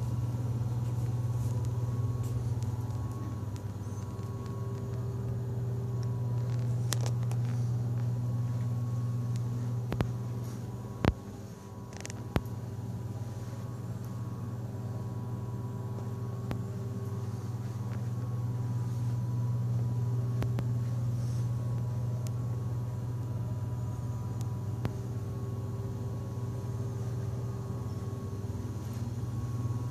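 A steady low rumble with faint steady tones above it, and a few sharp clicks about ten to twelve seconds in.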